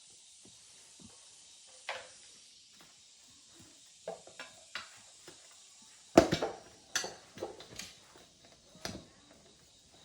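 Scattered metal clinks and knocks, as of hand tools being picked up and set down or struck. They are sparse at first and come thicker from about four seconds in, with the loudest knock about six seconds in.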